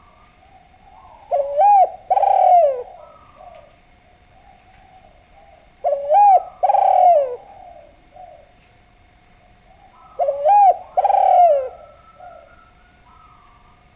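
Spotted dove (Javanese derkuku) cooing. It gives three loud phrases about four seconds apart, each a short coo followed at once by a longer, falling coo, with softer coos between the phrases.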